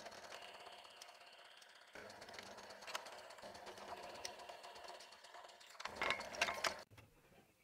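Small bench drill press running, its bit boring pin holes through a wooden knife-handle scale, with scattered clicks. It grows louder and busier near the end, then cuts off suddenly.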